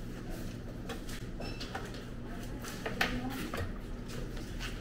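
Indoor room tone: a steady low hum with a few light knocks and clicks, the sharpest about three seconds in, and faint voices in the background.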